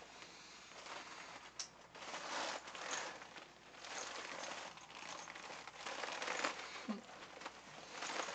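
Rustling and crinkling of a shiny PVC costume layered over a sauna suit as the wearer moves, in irregular swells.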